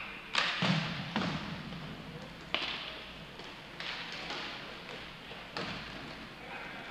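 Inline hockey play: irregular sharp clacks and thuds of sticks striking the puck and the puck hitting the rink boards, three close together in the first second and a half, then single ones every second or so.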